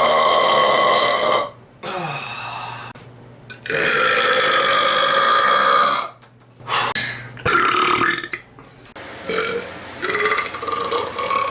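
A man belching loudly: a long drawn-out burp carrying on to about a second and a half in, a second long burp from about four to six seconds in, then several shorter burps.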